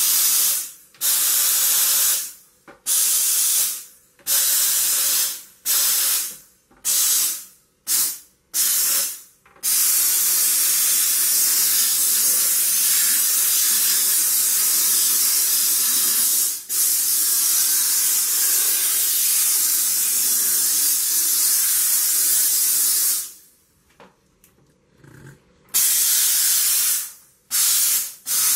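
Sauber Brilliance steam cleaner hissing as it jets steam. It comes first in short on-off bursts about every second and a half, then in a long unbroken jet, then cuts out for about two seconds near the end before resuming.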